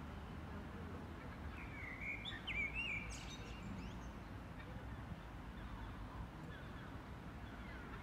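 Wild birds singing: a short burst of quick rising and falling notes about two seconds in, then fainter chirps, over a steady low background noise.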